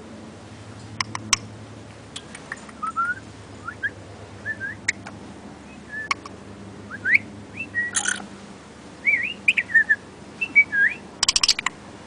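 Black-capped lory giving a series of short, rising whistled chirps that come faster and more often in the second half. A few sharp clicks are heard early on and a quick rattle of clicks near the end.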